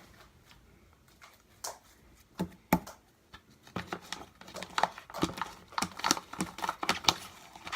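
Slime being squeezed and kneaded by hand, making wet clicks and pops: a few scattered ones at first, then a quick, irregular run from about halfway through.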